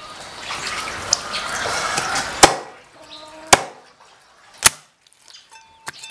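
Meat cleaver chopping through a whole hen on a wooden chopping block, taking off the head and neck. About halfway in, three sharp chops fall roughly a second apart. They follow a couple of seconds of rushing, splashy noise.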